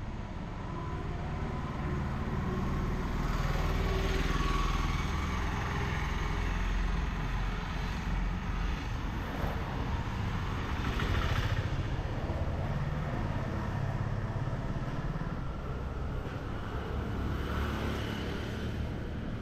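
Street traffic: motor vehicles and motorcycles passing, their engines swelling and fading several times over a steady low rumble.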